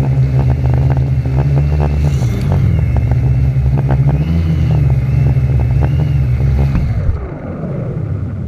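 450-size quadcopter's four electric motors and propellers whirring steadily, the pitch wavering up and down as the throttle changes. About seven seconds in the sound drops and the motors wind down with a falling pitch as the quad sets down in the grass.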